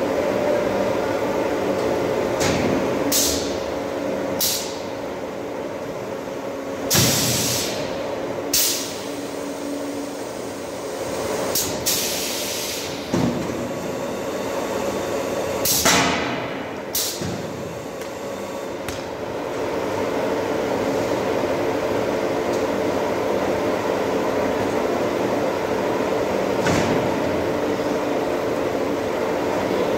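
Fully automatic silage bagging machine running through a packing cycle: a steady motor hum with several fixed tones, broken by a series of short, sharp bursts of hiss in the first two-thirds and once more near the end.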